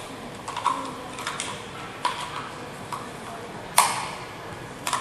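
A scatter of light clicks and taps with a short ring to them, one sharper knock about four seconds in, over a steady hiss.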